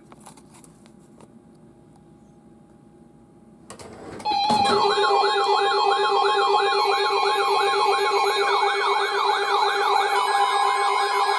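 Weather radio alert siren going off for a severe thunderstorm warning: a few faint clicks, then about four seconds in an abrupt, loud electronic wail sweeping up and down about three times a second, with overlapping wails and steady tones beneath.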